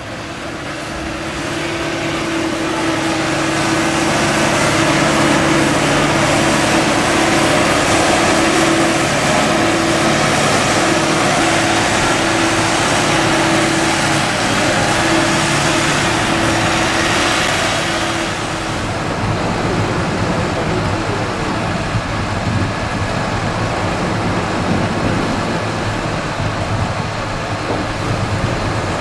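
Cat telehandler's diesel engine running under load with a steady whine as it pushes and drives over corn silage. About 18 seconds in, the sound changes to the deeper running of a Fendt tractor with a Joskin Drakkar wagon unloading silage.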